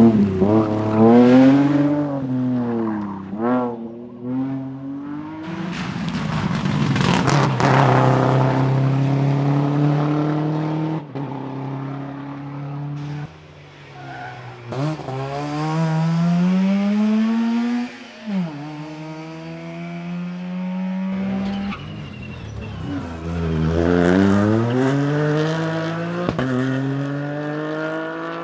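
Rally car engines at full throttle, the pitch climbing and falling again and again through gear changes and lifts, with several abrupt drops in the sound.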